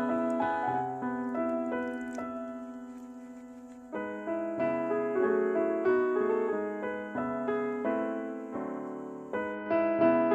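Background piano music: notes and chords struck and left to ring, a long held chord fading away, then a new phrase starting about four seconds in.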